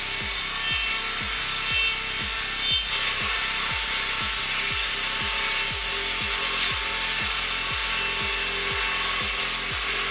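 Background music with a steady, regular beat of deep thumps, over the steady high hiss of wood-cutting machinery.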